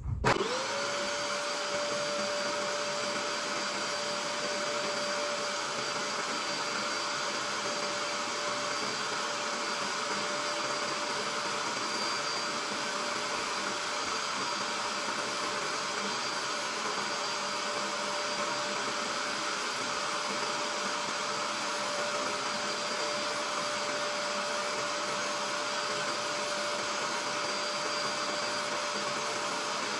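Portable upholstery steam cleaner's motor switching on, its whine rising within half a second to a steady pitch, then running steadily with a rushing suction noise as the hand tool works over fabric upholstery.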